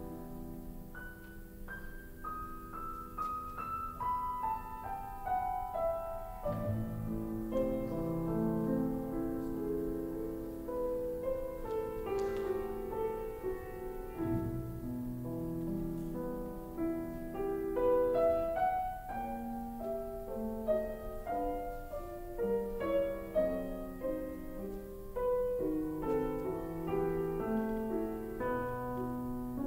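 Instrumental music led by piano, a melody of short notes with a falling run in the first few seconds.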